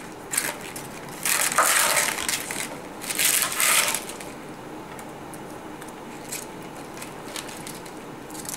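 Red cabbage leaves being torn off the head and cut with a knife on a wooden chopping board: two loud tearing bursts, each about a second long, in the first four seconds, then softer scattered taps.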